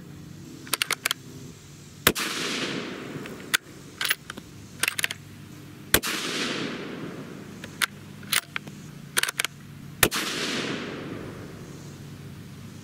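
Three shots from a .223 Remington bolt-action rifle (Ruger American Gen II Predator), about four seconds apart, each with a short echoing tail. Between the shots come light metallic clicks of the bolt being worked to chamber the next round.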